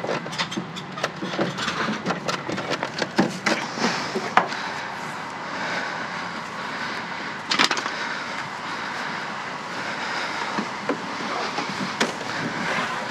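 Rummaging through curbside junk: objects knocking and clattering against each other, with a quick run of small knocks at first and one louder bang a little past halfway.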